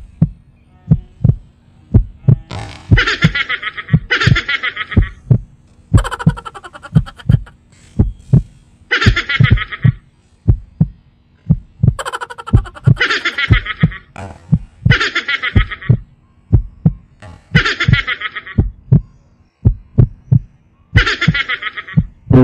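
Heartbeat sound effect: steady low thumps, about two to three a second, with a short higher-pitched burst every few seconds laid over them.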